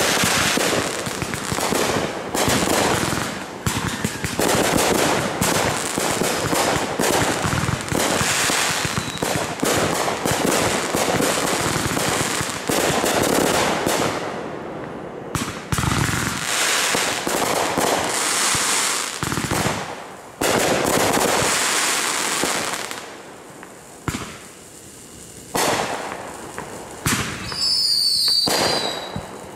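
Fireworks display: aerial shells and cakes going off in dense, rapid bangs and crackling, easing into a lull a little past the middle before picking up again. Near the end, a few short high whistles fall in pitch.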